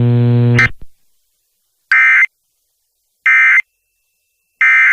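A steady low electrical buzz cuts off about half a second in. Then come three identical short bursts of EAS digital data tones, about 1.3 seconds apart: the end-of-message code that closes the Emergency Alert System broadcast.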